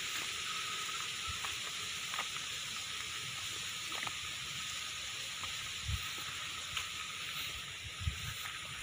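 Steady, even outdoor hiss with a faint high tone running through it. A few soft footsteps land on a dirt path between rice paddies.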